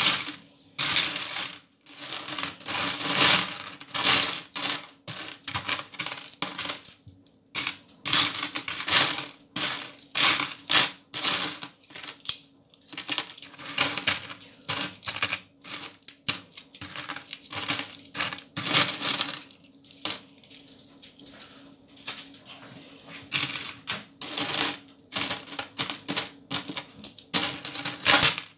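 A heap of small copper euro-cent coins being sifted and picked through by hand in an orange plastic tray: a continuous, irregular clinking and jingling of coins against each other and the tray.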